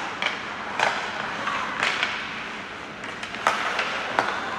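Ice hockey play: skate blades scraping the ice, with about five sharp clacks of sticks striking the puck.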